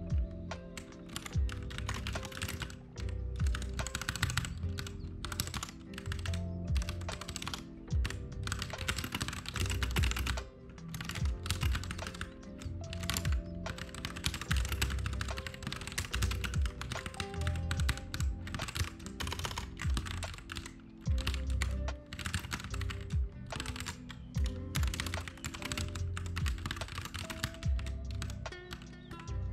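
Computer keyboard typing in quick, irregular runs of keystrokes, over background lo-fi music with a steady low beat.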